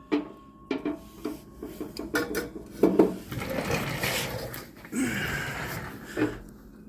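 Metal tools clinking and knocking against the motorcycle's front end, then a few seconds of metal scraping and shuffling as a big screwdriver is worked into place.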